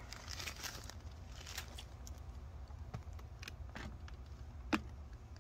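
Small plastic zip-lock baggies of diamond-painting drills handled in the fingers: faint crinkling and light scattered clicks, with one sharper click near the end, over a steady low hum.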